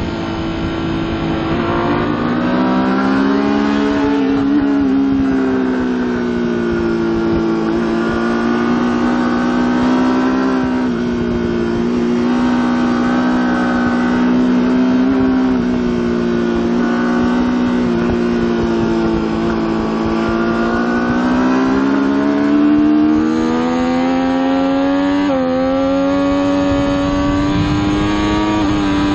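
Triumph Daytona 675's three-cylinder engine at full racing effort, recorded on the bike itself. The revs rise and fall through the corners, then climb over the last few seconds with a brief dip about three-quarters of the way through as it shifts up under hard acceleration.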